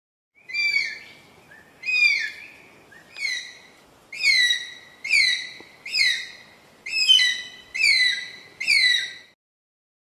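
Philippine eagle calling: a series of nine high-pitched whistles, about one a second, each sliding down in pitch. The first few are a little quieter than the rest.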